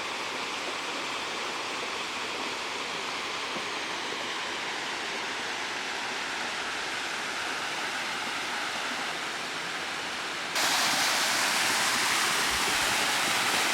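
Waterfall rushing steadily; about ten and a half seconds in the sound suddenly becomes louder and brighter.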